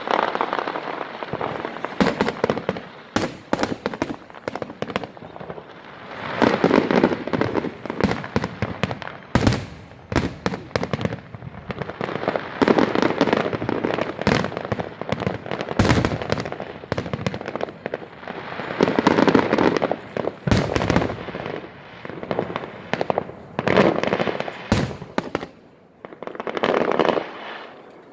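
Fireworks display: aerial shells bursting with repeated sharp bangs, mixed with stretches of dense crackling from crackle shells.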